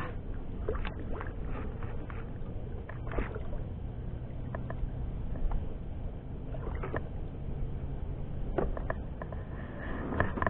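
Scattered light knocks and taps on a kayak over a steady low rumble of wind and water, as a just-landed catfish and tackle are handled aboard.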